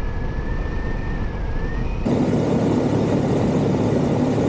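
Adventure motorcycle riding at road speed: steady engine drone mixed with wind rush on the camera, with a faint steady whine at first. About two seconds in the sound changes suddenly to a louder drone with a stronger engine hum.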